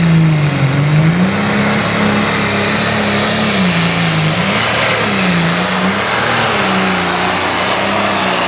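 Limited Pro Stock pulling tractor's 640-cubic-inch diesel engine running loud under full load on a pulling run, its pitch sagging and climbing back about four times as the engine bogs and recovers through wheel stands.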